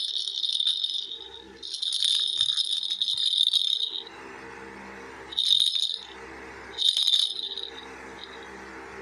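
A hanging ball toy rattling and jingling in bursts as a kitten bats at it: two long bursts over the first four seconds, then two short ones about a second and a half apart. A low steady hum runs underneath.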